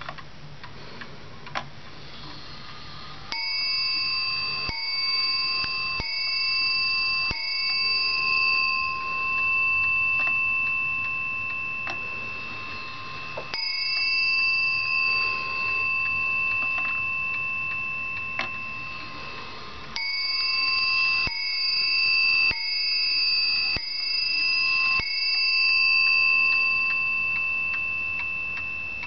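Warmink Zaanse wall clock's bell striking: four strokes about a second and a half apart, a single stroke, then five strokes, each left to ring out. This is the clock striking four, the half hour, then five.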